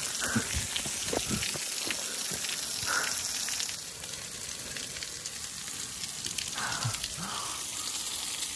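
Steady hiss of rushing water, with a few soft clicks in the first couple of seconds.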